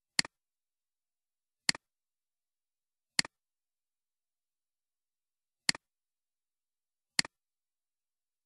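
Five sharp computer mouse clicks, each a quick double tick of button press and release, spaced about a second and a half apart with a longer gap in the middle.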